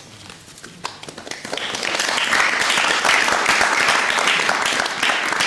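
Audience applauding: a few scattered claps at first, swelling into steady, full applause about two seconds in.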